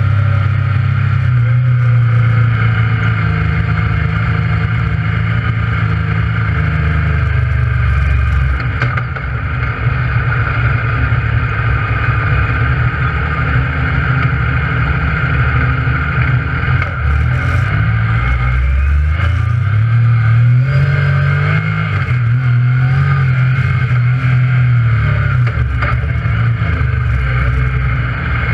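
Yamaha YXZ1000R's three-cylinder engine running while driving, heard from inside the cab; it eases off about eight seconds in and climbs in pitch again around twenty seconds.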